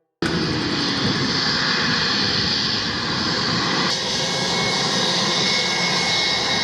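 Airplane engine sound effect: a loud, steady engine noise that starts abruptly, shifts slightly in tone about four seconds in, and cuts off sharply.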